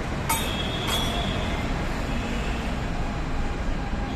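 Steady road-traffic rumble, with two sharp metallic clinks that ring briefly, about a third of a second and a second in.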